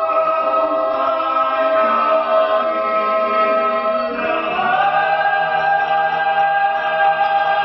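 Mixed choir singing a cappella in sustained chords, moving to a new held chord about halfway through.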